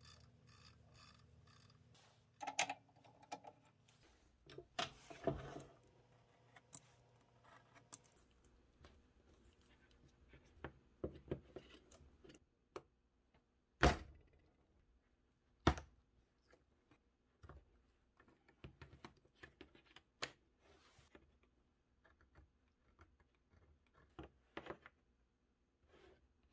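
Wooden pieces being handled and split apart with a blade: scattered clicks, light knocks and rubbing as the glued strips of a turned blank come away from each other. Two sharp knocks come a little past the middle, about two seconds apart.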